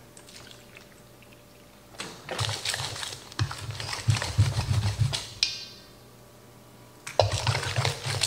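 Quiche filling of eggs, grated zucchini and cheese being stirred in a stainless steel mixing bowl with a wooden-handled utensil, scraping and tapping against the metal. The stirring starts about two seconds in, pauses briefly, and picks up again near the end.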